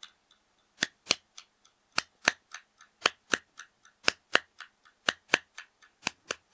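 A steady rhythm of sharp, dry clicks, a loud pair about once a second with softer clicks in between, making a ticking beat.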